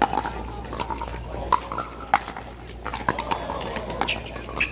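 Pickleball paddles striking a hard plastic pickleball during a rally: a series of about six sharp, hollow pops at uneven spacing, the loudest a little after two seconds in.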